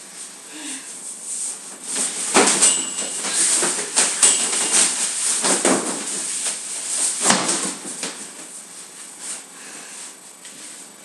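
Scattered thumps, scuffling and rustling as two boys grapple with a collapsible fabric play tunnel on a hard floor, with a couple of short squeaks. The loudest thumps come about two and a half, four, five and a half and seven seconds in, and the scuffling quietens in the last few seconds.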